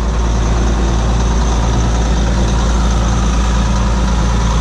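John Deere 7720 combine's diesel engine idling steadily. The engine has heavy blow-by, with its crankcase vent blowing oil.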